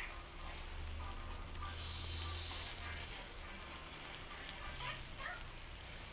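Chicken heart skewers sizzling on a wire grill over glowing charcoal: a steady hiss with a few small crackles.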